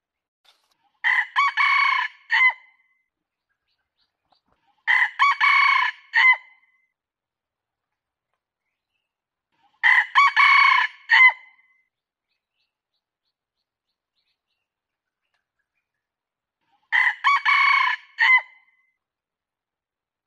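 Red junglefowl rooster crowing: four short, clipped crows a few seconds apart, each broken into several quick notes with a brief final note. It is a recorded crow of the kind hunters play as a lure call.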